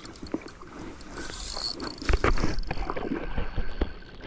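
A hooked asp splashing and thrashing in shallow water at the shore as it is brought in. About halfway through, heavy knocks and rumble from handling crowd in, and a sharp click comes at the very end.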